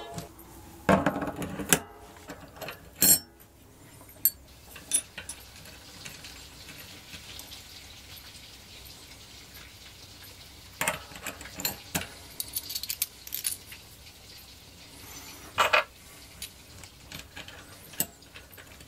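Light metal clinks and clicks of steel bicycle cassette sprockets and spacers being slid onto a greased freehub body, coming in scattered short bursts.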